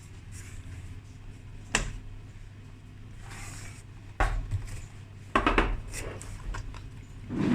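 Small hard objects knocked and clattered together, a handful of separate clicks and knocks and a short clatter near the end, over a steady low hum.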